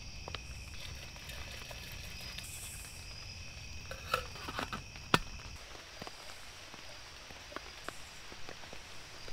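Crickets trilling steadily in the background, with a few light clicks and knocks of handling in the middle, the sharpest about five seconds in.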